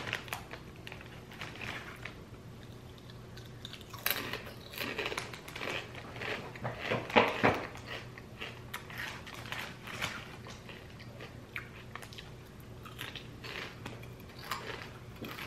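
A person chewing crunchy chips: irregular crunches, thickest from about four to ten seconds in and sparser near the end.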